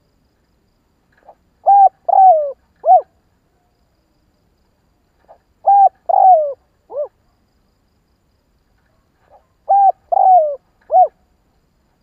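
Spotted dove cooing its song three times, about four seconds apart: each phrase a faint short note then three loud coos, the middle one drawn out and falling, the last dropping in pitch.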